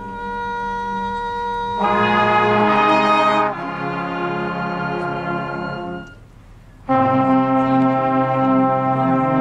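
Marching band brass playing sustained chords: a soft held note swells into a full chord about two seconds in, fades and briefly drops out around six seconds, then the full brass section comes back loud.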